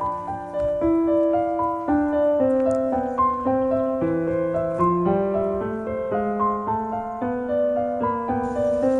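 Background piano music: a gentle melody of single notes, each struck and left to fade. A faint hiss joins near the end.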